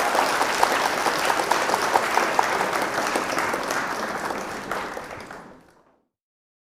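An audience of schoolchildren and teachers applauding with many overlapping claps. The applause dies down about five seconds in and stops abruptly near six seconds.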